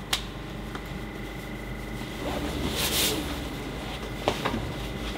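Cab of an electric city bus at a standstill: a steady hum with a faint high whine, a few sharp clicks from the dashboard switches and buttons, and a short hiss about three seconds in.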